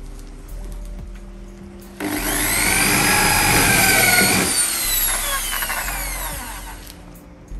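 Corded electric drill starting up about two seconds in and running at speed into wood, then released so the motor winds down with a falling whine over a couple of seconds.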